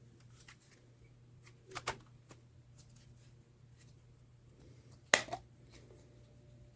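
Handling noises over a faint steady hum: a few light clicks and taps about two seconds in, then one sharper click or knock about five seconds in.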